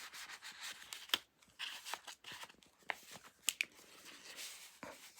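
Paper and card stock being handled: cards slid in and out of a paper pocket in a handmade junk journal, making soft rustles and light scattered taps and ticks.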